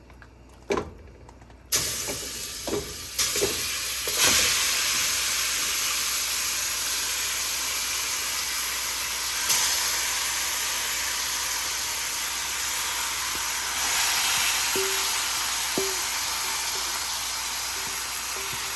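Seasoned chicken pieces going into a pot of hot oil and curry, sizzling loudly and steadily from about two seconds in, after a few knocks of pot and utensil.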